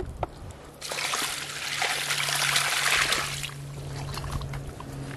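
Water pouring out of a tipped plastic bucket and splashing onto muddy ground as the catch of fish is emptied out. The splashing starts about a second in and lasts about two and a half seconds.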